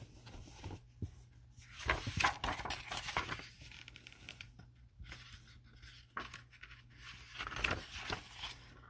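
Paper pages of a picture book being turned and handled, making several bursts of rustling and light paper scraping, the loudest about two seconds in and again near the end.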